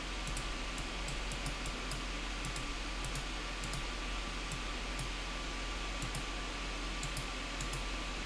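Computer mouse clicking at irregular intervals, about twenty short clicks, some in quick pairs, over a steady background hiss and faint electrical hum.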